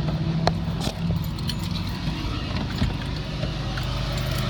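Car engine running, heard from inside the cabin, its low tone shifting about halfway through, with light jingling and clicking of keys.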